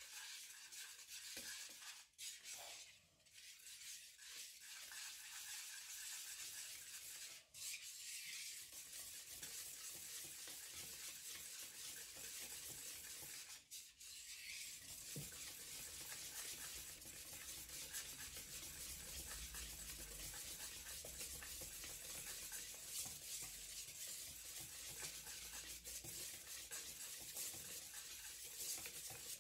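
Wire balloon whisk stirring flour into chiffon cake batter in a bowl: a steady soft scraping and swishing, broken by three brief pauses.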